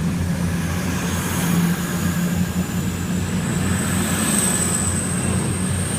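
Class 222 Meridian diesel multiple unit running at the platform: a steady low engine hum with a thin high whine that climbs slowly in pitch.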